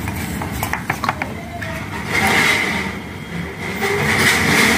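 Water sloshing and splashing in a plastic tub as a half-baked clay bowl is dunked and moved about in it, with a few light taps in the first second, then two longer swishes, one about two seconds in and one near the end.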